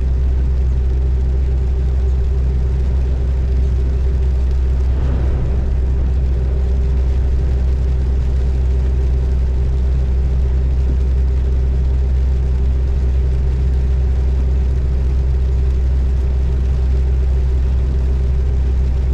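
Car driving along a road: a steady, loud low rumble of engine and road noise with a constant hum, unchanging throughout.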